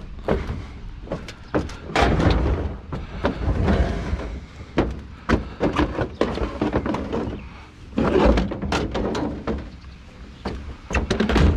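Scrap being handled and pushed flat: a string of thuds, bangs and scrapes, loudest about two, four, eight and eleven seconds in.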